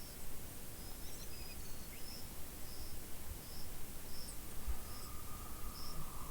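Lakeside forest ambience: a short high chirp repeats evenly about every 0.7 seconds, with a few brief bird notes in the first half. About three-quarters in, a steady lower trill from a frog or insect starts and keeps going.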